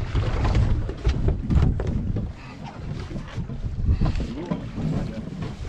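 Wind buffeting the microphone aboard a small boat at sea, with repeated knocks and clatter on deck.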